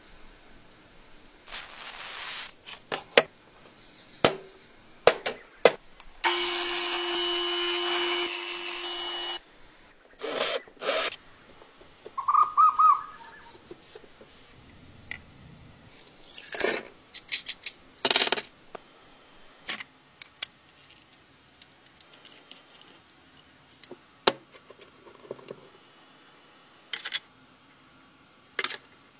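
Workshop sounds of hand restoration work: scattered clicks, taps and scrapes, with a power tool running steadily for about three seconds a quarter of the way in.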